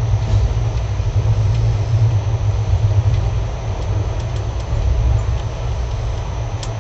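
Steady low rumble of a moving passenger train, heard from on board, with a few faint clicks.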